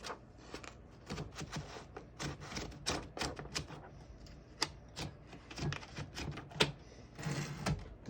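1936 Corona Standard Special typewriter's mechanism being worked by hand: irregular sharp clicks and clacks, with a short sliding rasp near the end.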